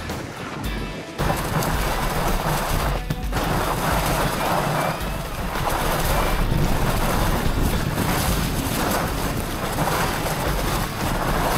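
Background music over the rush of wind on the microphone and fat-bike tyre noise on snow during a downhill ride. The wind and riding noise surge and ease in waves, louder from about a second in.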